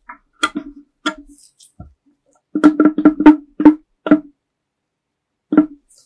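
A restored vintage electric diaphragm car horn giving short honks from quick presses: a few single blips, a fast run of about five about halfway through, then two or three more single honks.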